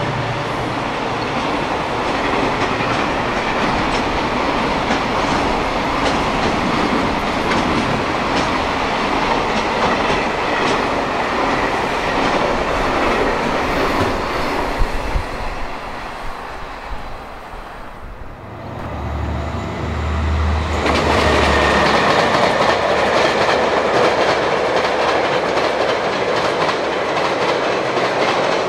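Diesel train passing at speed, its wheels clattering over the rail joints. The clatter dies away about two thirds through, a low engine hum comes in, and then loud clattering of a second pass takes over.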